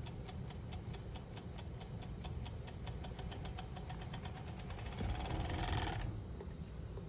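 Industrial sewing machine stitching a seam of knit fabric and elastic tape, a low motor hum under a regular ticking that quickens toward the end and stops about six seconds in.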